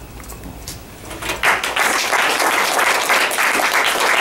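Audience applauding, breaking out about a second and a half in.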